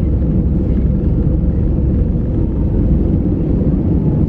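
Airbus A320 on its takeoff roll, heard from inside the cabin over the wing: the jet engines at takeoff thrust and the wheels on the runway make a loud, steady, deep rumble with a faint steady drone in it.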